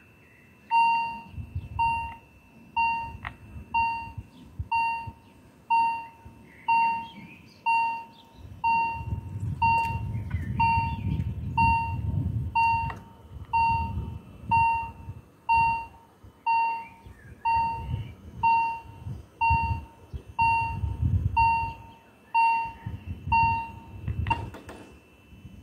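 Level crossing warning bell ringing about once a second, each ding clear and quickly fading, signalling that the crossing is closing for an approaching train. It stops near the end after a brief rattle.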